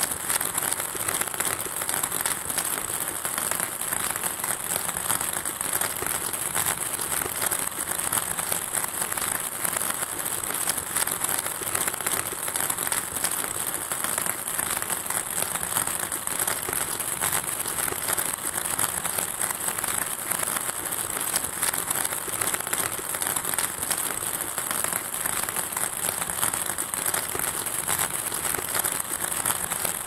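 Dozens of ping pong balls falling and bouncing on a tile floor: a dense, unbroken clatter of many small clicks.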